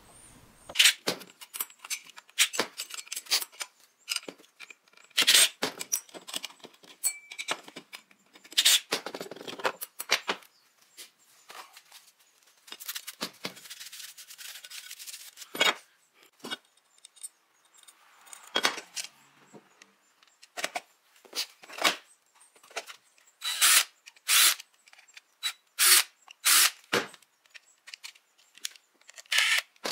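Workbench handling noises: scattered clicks and knocks of a plastic solar charge controller and an aluminum angle bracket being picked up and set down on a plywood bench. A stretch of paper towel rubbing over the aluminum bracket comes in the middle, and a run of louder knocks follows near the end as the controller is fitted to the bracket.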